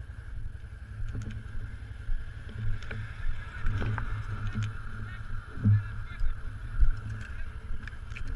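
Steady high whine, slightly wavering, over a gusting low rumble, with a few faint knocks; it fits a small drone's electric motors and propellers.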